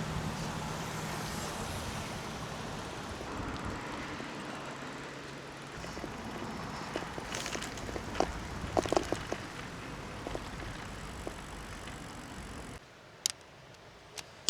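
Brompton folding bicycle being ridden: steady tyre and wind noise, with a cluster of sharp rattling clicks from the bike about eight to nine seconds in. The sound cuts off abruptly near the end.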